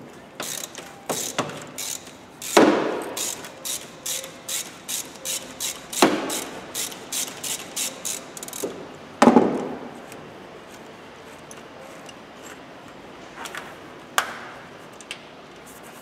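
Ratchet wrench on a 24 mm deep socket clicking in short back-strokes, about two clicks a second, as it unscrews a car's reverse-light switch, with a few louder knocks among the clicks. The clicking stops about ten seconds in, and a few clicks follow near the end.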